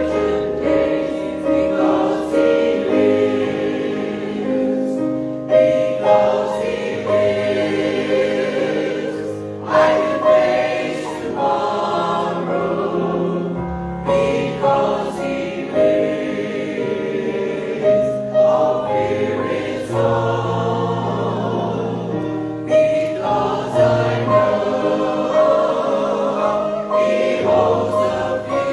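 A group of voices singing a hymn together over a sustained accompaniment, the chords changing every couple of seconds.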